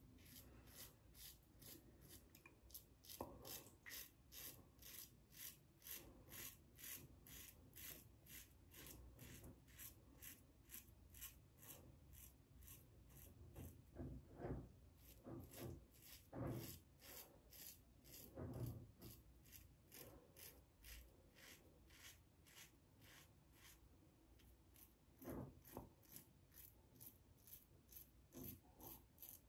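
TGS Valynor safety razor with a KAI blade scraping through lathered stubble against the grain, in short, quick strokes about two or three a second, each a faint rasp. A few duller knocks come around the middle and again near the end.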